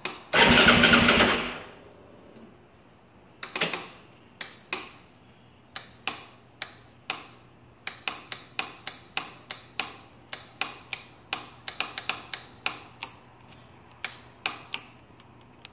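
Starter solenoid of a 2015 Yamaha Raptor 700SE clicking over and over, about one to two sharp clicks a second, while the quad fails to start. Near the start there is a loud burst of noise lasting about a second.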